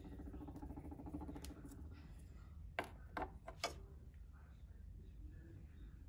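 Faint rattle of glitter shaken from a small plastic shaker bottle, with three sharp clicks close together a little under three seconds in.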